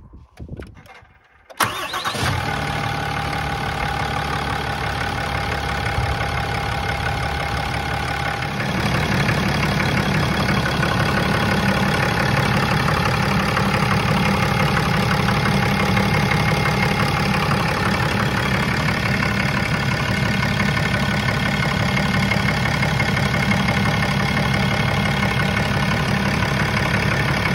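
Ram 2500's 6.7 L Cummins turbo-diesel inline-six starting up suddenly about a second and a half in, then idling steadily. The idle grows a little louder and deeper about eight seconds in. It is running to check the newly fitted coolant Y-pipe for leaks.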